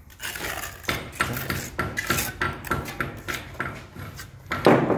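Small steel trowel scraping and tapping wet mortar against a stone set into a wall: a run of short scrapes and clicks, with a louder knock near the end.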